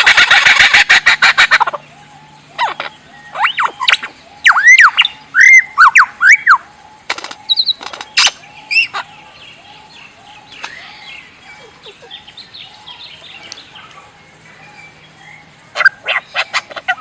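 A mimicking bird calling: fast runs of dry clicks at the start and again near the end, and between them a series of loud whistled, looping calls and a few single sharp cracks. Fainter calls repeat steadily through the middle stretch.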